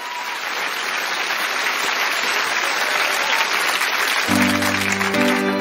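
Audience applauding, then about four seconds in a held keyboard chord comes in over the clapping as the song's intro begins.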